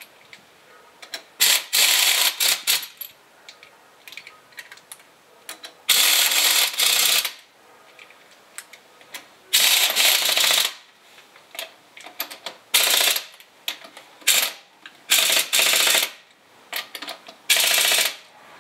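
Pneumatic impact wrench hammering on a wheel's lug nuts in a series of short bursts of a second or less, with pauses between.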